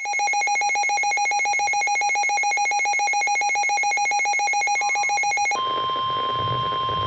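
Emergency alert tones: a rapidly pulsing, ringing electronic tone, then about five and a half seconds in an abrupt change to one long steady single-pitch tone, like the NOAA Weather Radio warning alarm that signals a warning is about to be read.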